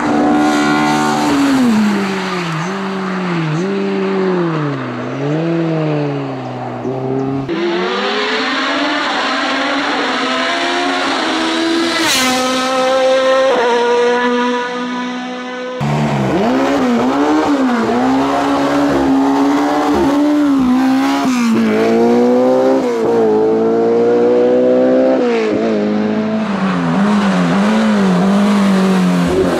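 Race car engines at full throttle, revving up through the gears and dropping sharply on shifts and lifts for corners. The sound comes as three passes joined by sudden cuts, about a third and halfway through.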